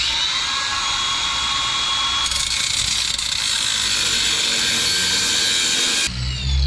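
Power tool with an abrasive cutting disc cutting through a steel exhaust pipe: a steady high whine over harsh grinding, louder about two seconds in, then cutting off suddenly near the end.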